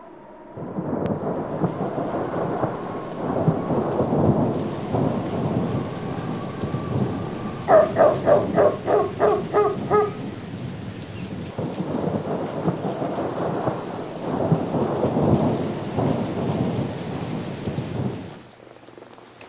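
A loud, continuous low rumble with a hiss over it that swells and eases. About eight seconds in, a quick run of about nine pulsed tones, some four a second, lasts a couple of seconds. The rumble fades out near the end.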